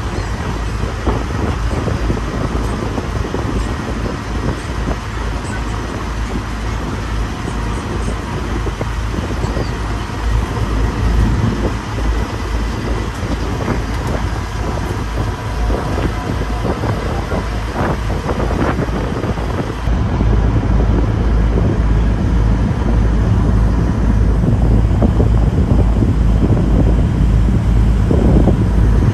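River boat under way: a steady low rumble with wind buffeting the microphone, stepping up in loudness about two-thirds of the way through.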